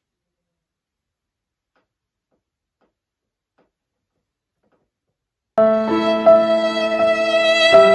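Silence for about the first five and a half seconds, then background music with long held notes starts abruptly.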